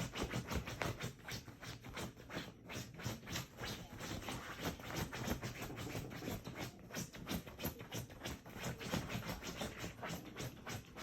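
Dog scratching: a continuous, irregular run of short scratchy strokes, several a second.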